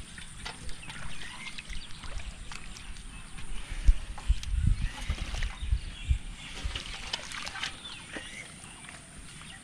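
Hands and bare feet splashing and sloshing in shallow muddy water, with scattered small irregular splashes and clicks.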